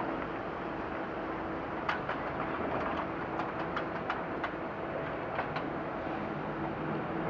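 Stopped city traffic idling: a steady engine hum from the lorry and vans standing alongside, with a scattered run of light clicks partway through.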